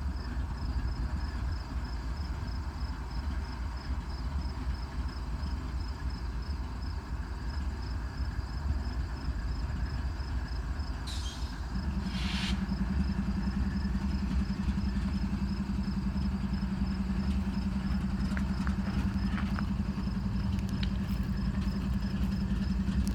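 A stopped train idling with a steady low rumble. Two short hisses come about halfway through, and then a steady hum sets in and holds.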